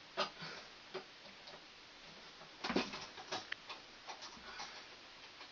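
Scattered small clicks and taps of hand work on a commercial-grade light switch, its wires and a screwdriver: one just after the start, another about a second in, and a quick cluster around the middle.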